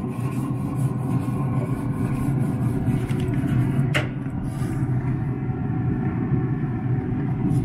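A steady low mechanical hum and rumble, with a single sharp click about four seconds in.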